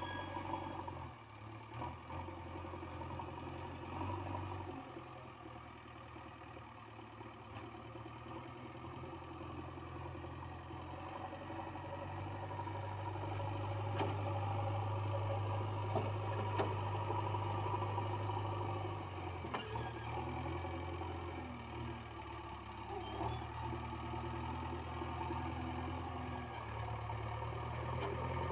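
JCB 3DX backhoe loader's four-cylinder diesel engine running under working load, its drone swelling and easing as the machine manoeuvres with its front bucket on the soil, with a few faint knocks.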